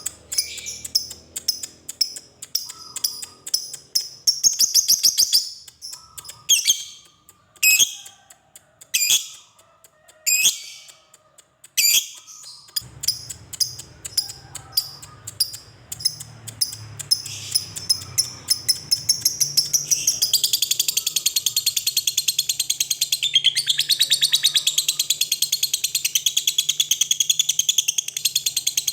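A lovebird calling with shrill high chirps, spaced out at first, then running from about two-thirds of the way in into one long unbroken rapid chatter, the 'ngekek panjang' of a fighter lovebird. A low steady hum joins in under it partway through.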